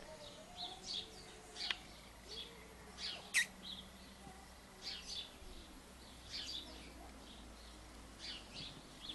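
Small birds chirping in short, high calls again and again, with one sharp click about three seconds in.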